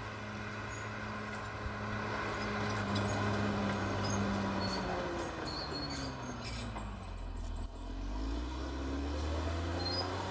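CAT D6R XL bulldozer's diesel engine running steadily with scattered clicks and clanks. About halfway through, the engine pitch falls, dips lowest a little under three-quarters of the way in, then rises again.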